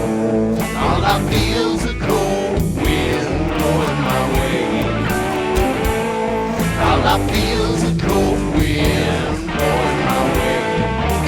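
Rock song's instrumental passage: electric guitar playing over bass and drums, with a steady drum beat.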